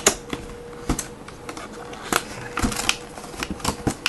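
Irregular clicks, snaps and crackles of packaging handled by hand as a small USB wireless adapter is pried out of its box, with a few louder snaps in the middle.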